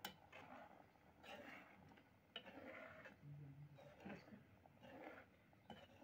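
Faint sloshing of thick rajma curry stirred with a metal slotted spoon in a kadhai, with a few light clicks of the spoon against the pan.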